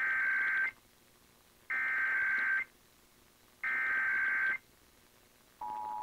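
Emergency Alert System SAME header: three bursts of warbling digital data tones, each just under a second long with about a second of pause between them. Near the end, the steady two-tone EAS attention signal begins, announcing a Required Monthly Test.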